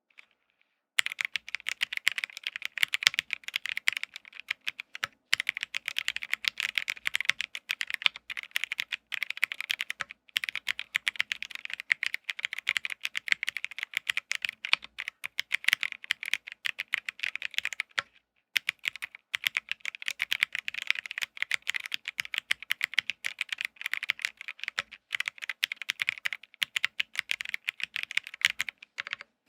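Continuous fast typing on a MonsGeek M1 custom mechanical keyboard fitted with Akko CS Sakura switches, a POM plate and Marrs Green keycaps: dense key clicks and clacks, starting about a second in, with a few brief pauses.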